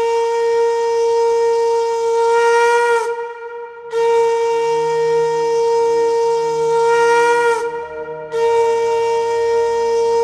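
Conch shell (shankha) blown in three long, steady blasts with short breaths between, each dipping slightly in pitch as it ends; the third is still sounding at the close.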